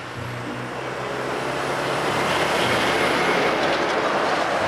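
Articulated fuel tanker lorry driving past: its diesel engine note and tyre noise build up as it approaches, peak as it passes close about three seconds in, then begin to fade.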